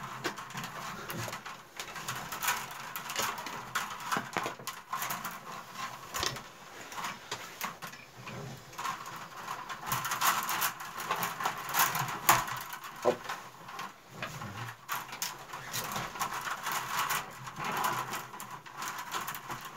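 Willow rods rustling, creaking and clicking against one another as hands weave them around the close-set stakes of a cone basket: many small, irregular ticks and scrapes.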